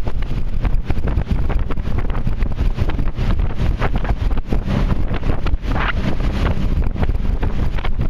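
Wind buffeting the microphone: a dense, gusty low rumble with rapid flutter.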